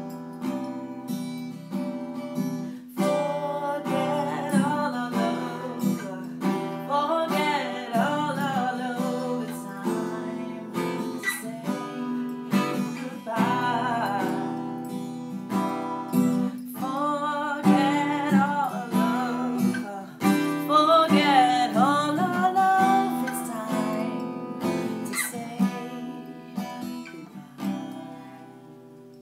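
Acoustic guitar strummed with a woman singing over it. Near the end the singing stops and the last guitar chords ring out and fade away.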